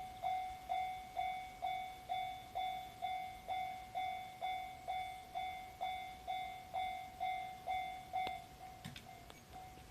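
Railway level-crossing warning bell ringing at a steady two strikes a second, each strike a bright ringing tone that fades away. About eight seconds in, the strikes turn much fainter.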